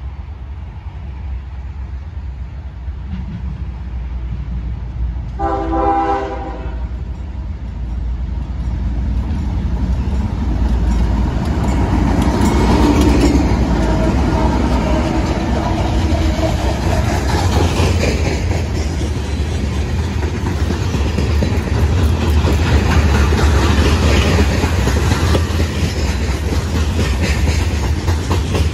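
CSX freight train led by two GE diesel locomotives, an ES40DC and a CW44AC, approaching and passing close by: a single air horn blast of about a second and a half comes about five seconds in. The locomotives then rumble past, growing louder, and loaded grain hopper cars roll by with steady wheel clatter on the rails.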